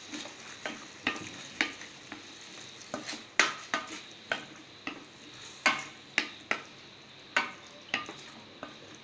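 Spatula scraping and knocking against a stainless steel kadai as chicken pieces with onions and chilli paste are stirred, in irregular strokes about one or two a second, over a low sizzle of frying.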